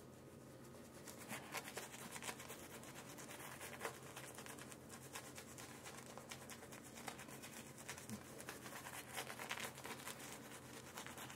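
Shaving brush worked briskly over a lathered face and stubble, bristles swishing and scratching through the lather in many quick, faint strokes.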